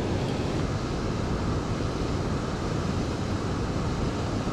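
Steady rushing of river water tumbling through a spillway, an even noise without breaks.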